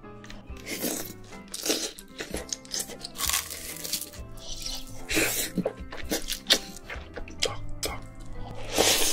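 Close-miked chewing and crunching of food in many short, crisp bites, over steady background music.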